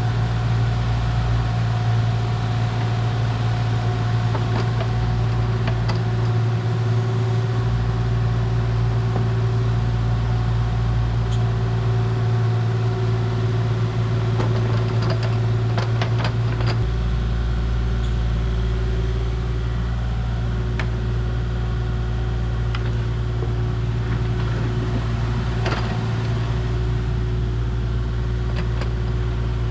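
A work vehicle's engine running steadily with a low drone. There are a few clicks and rattles in the middle, and the engine note shifts slightly about two-thirds of the way through.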